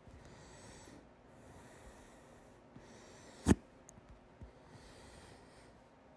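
A person hiccuping once, loudly, about three and a half seconds in, with soft breaths before and after.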